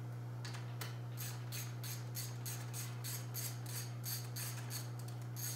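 Rapid, evenly spaced light clicking, about five clicks a second, from a hand tool or small part being worked on an RC car, starting about a second in. A steady low hum runs underneath.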